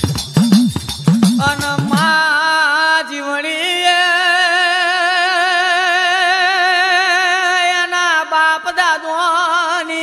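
Gujarati regadi folk song: a quick drum beat with jingles for about two seconds, then a long held vocal note with wavering vibrato that runs for about eight seconds.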